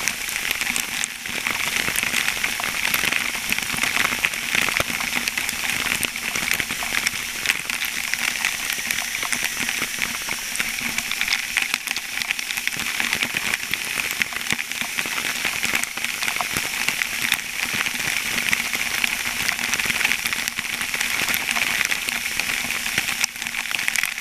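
Water spraying and raining down inside a dam outlet: a steady, dense spatter of drops with a crackling hiss.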